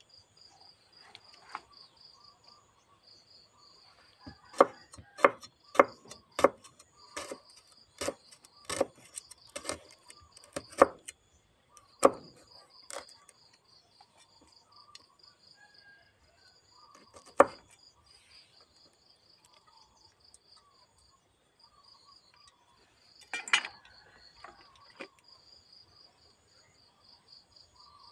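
Insects chirping steadily in a high, pulsing trill. About four seconds in comes a run of about a dozen sharp knocks, roughly one and a half a second, and two more single knocks follow later.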